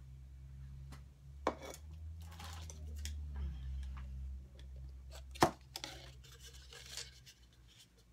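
Handling noises: rustling and a few sharp clicks and knocks, the loudest click about five and a half seconds in, over a low steady hum.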